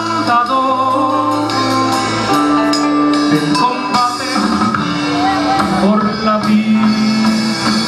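Live electric band playing: drum kit, electric bass, electric guitar and keyboard, with held notes that change every second or so over a steady drum beat.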